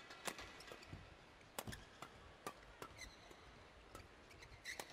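Faint sharp hits of badminton rackets on a shuttlecock, several times about a second apart, with short shoe squeaks on the court floor between them.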